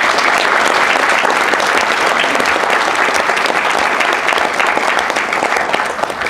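Audience applauding: dense, steady clapping that stops abruptly at the end.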